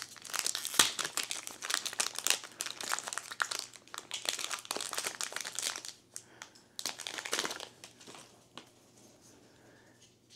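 Foil trading-card booster pack wrapper crinkling and tearing as it is worked open by hand: dense crackling for about six seconds, one more burst around seven seconds, then only faint rustling as the cards come out.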